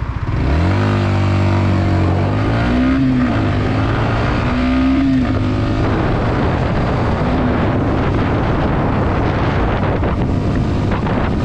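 Yamaha XSR125's single-cylinder four-stroke engine pulling away and accelerating, its pitch climbing and dropping back twice at the gear changes. Wind noise on the microphone then takes over as speed builds.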